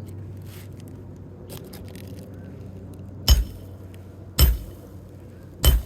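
Hammer blows on a Roof Snake, the metal shingle-removal tool wedged under asphalt shingles: three sharp metal-on-metal strikes about a second apart, starting about three seconds in.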